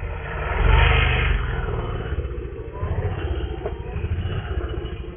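Dirt bike engine revving up as the rider lifts the front wheel into a slow wheelie, loudest about a second in, then running on with smaller throttle changes while he balances on the rear wheel.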